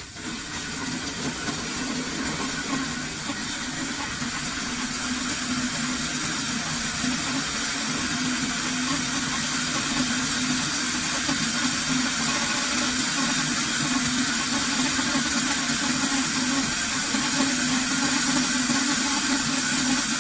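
Maywaysky electric herb grinder running steadily through a timed 30-second grind: an even whir with a steady low hum, growing slightly louder as it goes.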